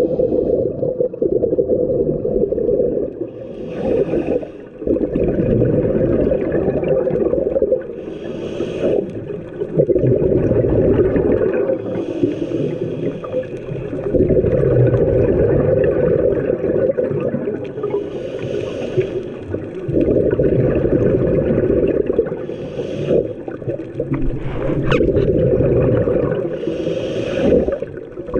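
Scuba diver breathing through a regulator underwater: long stretches of bubbling exhaust alternate with short hissing inhales, about six breaths roughly every four to five seconds.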